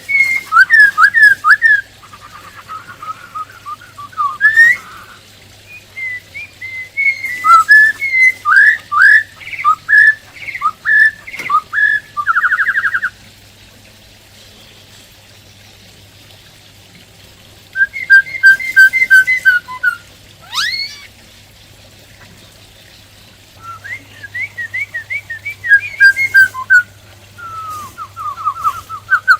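Black-throated laughingthrush (khướu bạc má) singing: four bouts of rapid, loud whistled notes and short trills, separated by pauses of a few seconds.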